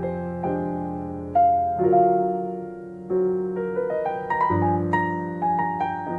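Recorded piano playing slow, sustained chords with a soft melody, a new chord struck every second or so and left to ring down, reproduced by KEF Q300 loudspeakers.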